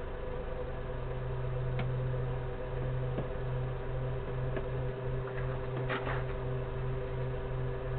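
A steady low hum with a fainter, higher steady tone over it, and a few faint clicks.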